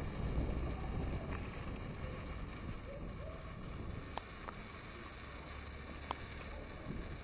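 Ride-along noise on a moving bicycle: steady wind rumble on the microphone with the tyres rolling over brick paving, and a few sharp light clicks and rattles from the bike.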